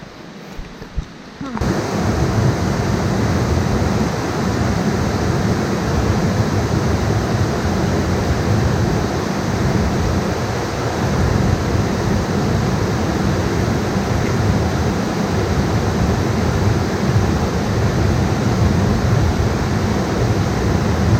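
Rushing water: a loud, steady roar of a jungle stream or cascade that cuts in suddenly about a second and a half in.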